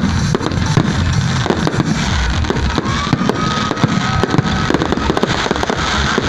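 Fireworks display: a rapid, unbroken barrage of bangs and crackling from many aerial shells bursting at once, with a brief faint whistle about three seconds in.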